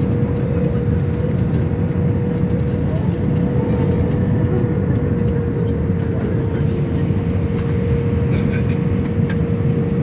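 Steady jet airliner cabin noise on approach to land: the rush of the engines and airflow heard inside the cabin, with a steady hum held at one pitch.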